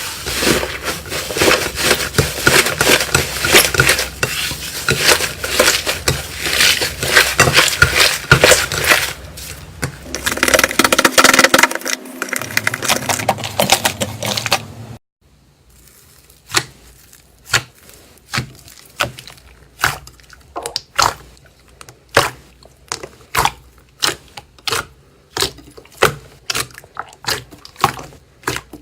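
Slime being squeezed and worked by hand, giving dense crackling and popping. About halfway through it cuts abruptly to a quieter run of separate sharp clicking pops, about one and a half a second.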